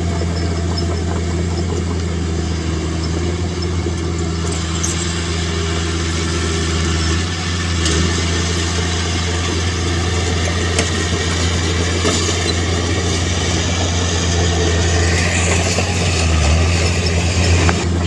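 Diesel engine of heavy earthmoving equipment running steadily, with a few light clanks, growing a little louder near the end.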